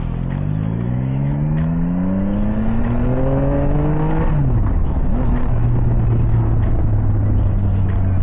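Yamaha Tracer 9 GT's inline three-cylinder engine pulling hard under acceleration, its pitch rising for about four seconds, then dropping sharply at an upshift and holding steady. Wind rush on the microphone.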